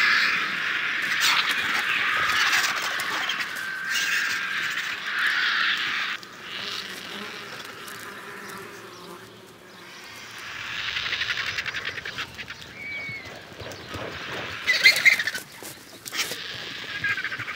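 Griffon vultures squabbling over a deer carcass: harsh hissing and squawking calls in spells, with a quieter stretch of a few seconds in the middle and louder calls again near the end.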